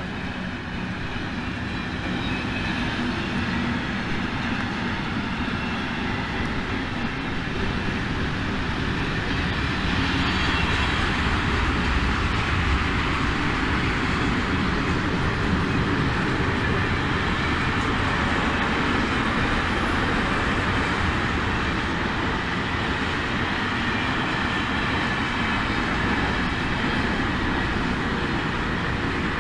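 Container freight train hauled by a PKP EU07 electric locomotive rolling past close by: a steady rumble and rail noise from the wheels of the loaded container flat wagons, growing a little louder about ten seconds in.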